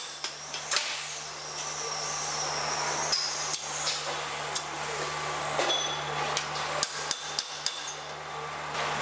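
Sharp metal taps and knocks on a steel pipe: a few scattered single knocks, then a quick run of four or so near the end, as the pipe is set level for welding during fit-up. A steady low hum runs underneath.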